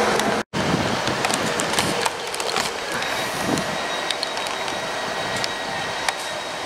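GWR Class 158 diesel multiple unit pulling into the platform: a steady rumble and hiss of wheels on rail with a run of sharp clicks and rattles, and a faint steady high tone from about three and a half seconds in. A brief dropout about half a second in marks an edit.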